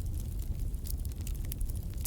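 Fireplace fire crackling, with a few scattered sharp pops over a steady low rumble.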